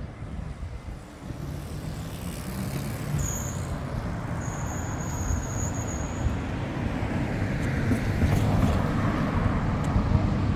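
Street traffic: a car driving past, its engine and tyre noise swelling over the last few seconds. A thin high whine sounds twice in the middle.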